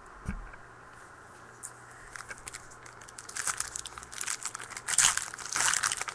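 Crinkling and tearing of a trading-card pack wrapper being opened by hand. It is fairly quiet at first, then grows louder and busier from about three seconds in.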